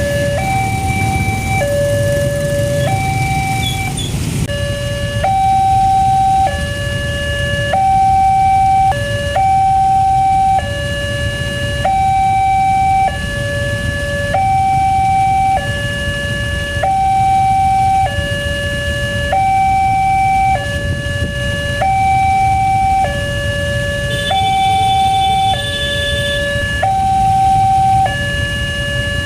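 Alkmaar-model railway level-crossing siren sounding its warning for an approaching train: a steady two-tone electronic alarm that alternates a higher and a lower note, about one high-low cycle every 1.3 seconds. A low rumble runs underneath.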